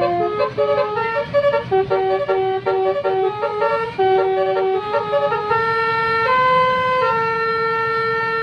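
Basuri multi-tone telolet bus horn playing a tune: quick runs of short notes, then a few longer held notes, stopping near the end.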